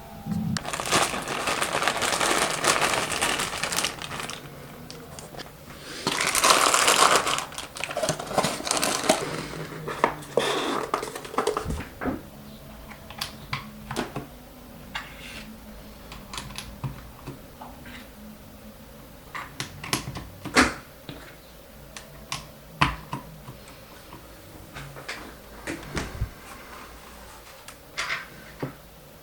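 Typing on a Keychron K2 V2 mechanical keyboard with Outemu Silent Lemon V3 silent switches, in an aluminium case with PE foam. Two fast runs of keystrokes come in the first several seconds, then single, spaced-out key presses.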